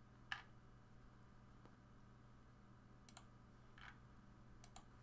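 Computer mouse clicking, five or six separate clicks with a quick pair near the end, over a faint steady low hum.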